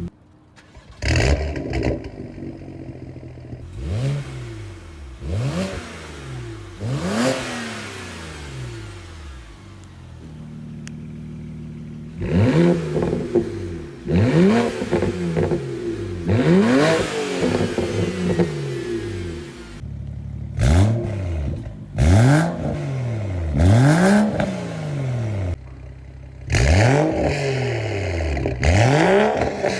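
BMW 335i turbocharged inline-six engines revving through valved aftermarket exhausts. About a dozen short free revs, each rising and falling in pitch, in groups with a few abrupt breaks between them.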